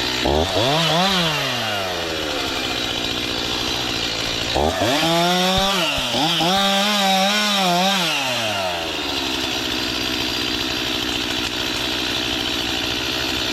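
Stihl two-stroke chainsaw idling, revved up briefly about a second in, then revved again near the middle and held at high speed for about four seconds, wavering a little, before dropping back to idle.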